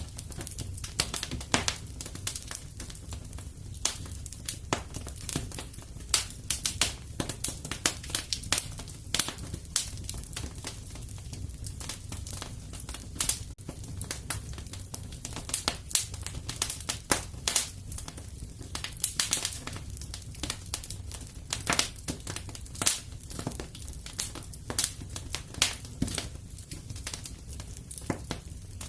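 Wood fire burning in a fireplace: dense, irregular crackling and popping, several snaps a second with louder pops scattered throughout, over a steady low rumble.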